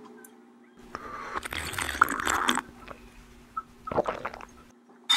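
Someone drinking water from an insulated water bottle: water sloshing and gulping for about two seconds, then one brief further sound a little later.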